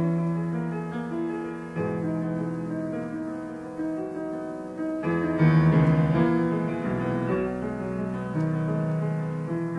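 Solo piano playing a slow classical piece in sustained chords. A new chord is struck about two seconds in and another about five seconds in, the second the loudest.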